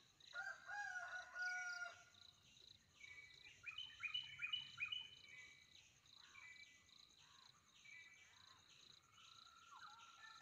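Faint birds calling: a couple of drawn-out calls in the first two seconds, then a quick run of four rising notes around four seconds in. Beneath them runs a steady, pulsing high insect chirp.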